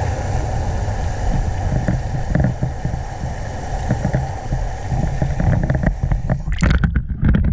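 Tornado-force wind roaring and buffeting the microphone with a heavy low rumble over a steady hiss. About six and a half seconds in the hiss cuts off suddenly and a run of sharp knocks and thumps follows.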